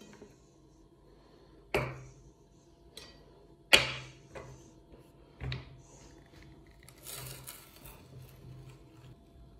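Hard-candy lollipops knocking against a china plate and dropping into the metal hopper of a meat grinder: a few sharp knocks, the loudest about four seconds in, then a short scrape later on.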